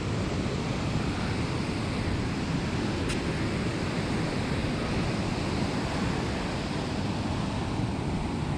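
Steady rush of ocean surf breaking on a beach, with wind buffeting the microphone. A single faint click about three seconds in.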